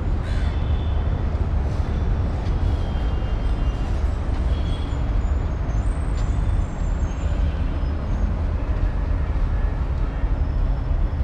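Outdoor morning ambience in a city park: a steady low rumble, with faint short high chirps of small birds scattered through it.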